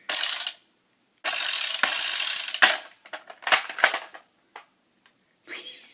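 Nerf Elite Strongarm blaster's plastic mechanism ratcheting and clicking: a short rattling burst, then a longer one of about a second and a half, then a run of sharper clicks.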